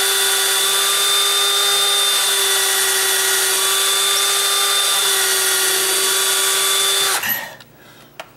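Cordless drill running at a steady speed with a small bit, boring a pilot hole for a finish nail in a thin wooden cabinet face frame. The whine stops about seven seconds in, followed by a single faint click.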